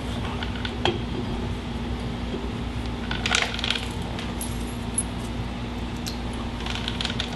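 Steel brake drum being slid by hand onto a golf cart's splined rear axle hub: scattered light metallic clinks and scrapes, bunched about three seconds in, over a steady low hum.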